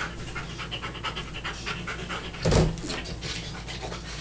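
Shaggy dog, an Old English Sheepdog, panting quickly and steadily at close range, with one louder short burst about two and a half seconds in.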